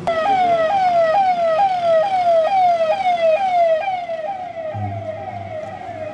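Electronic vehicle siren sounding a rapid repeating cycle, each a quick jump up in pitch and a slower fall, about twice a second. It starts abruptly, is loudest for the first four seconds or so, then fades a little.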